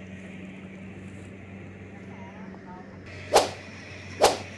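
A steady low machine hum, with two sharp swishing cracks about a second apart near the end, each much louder than the hum.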